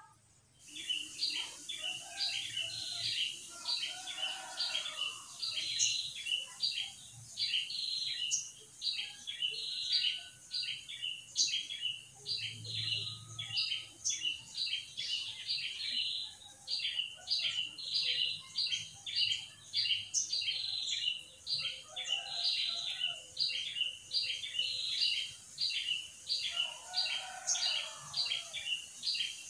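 Outdoor wildlife chirping, starting about half a second in: a rapid, regular run of short high chirps, two to three a second, over a constant high hiss, with a few fainter lower calls about two seconds in and again near the end.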